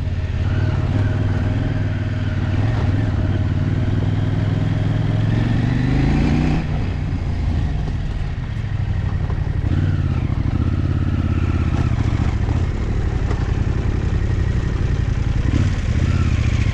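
Dual-sport motorcycle engine running while riding a dirt track, heard through the bike's onboard camera. The engine pitch climbs and then drops away about six seconds in, before settling back to steady running.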